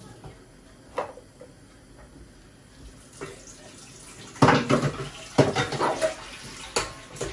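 Water from a kitchen tap splashing into a sink as food is rinsed in a metal colander, with clatter of the colander against the bowl. It is quieter at first, with one knock about a second in, and the splashing and clatter grow louder from about four and a half seconds.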